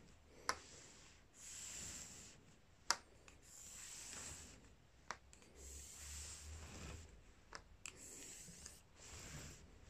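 Pencil drawn along a pipe to mark a straight line: a faint scratchy rubbing in several long strokes, with two sharp clicks in the first three seconds.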